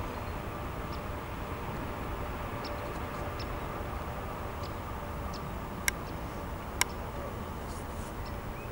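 Boeing 777-300's twin jet engines at takeoff power, heard far off as a steady low rumble with a faint whine, as the airliner lifts off and climbs away. Two sharp clicks about six and seven seconds in.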